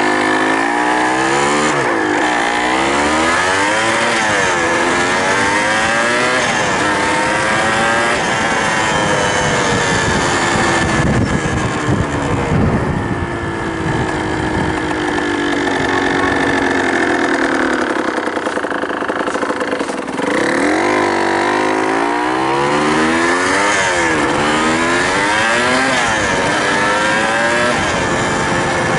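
Warmed-up Suzuki TS200R's single-cylinder two-stroke engine under way, revving up through the gears: its pitch climbs and drops with each shift, several times in a row. It holds steadier in the middle, dips briefly about twenty seconds in, then revs up through the gears again.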